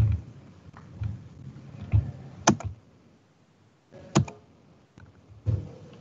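Computer mouse clicking: two sharp clicks about two and a half and four seconds in, each a quick double of press and release. A few soft low thumps come before them.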